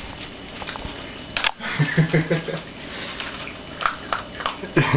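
English bulldog puppy eating food off a paper plate: irregular wet smacking, chewing and clicking of its mouth against the food and plate, with a short low grunt about two seconds in.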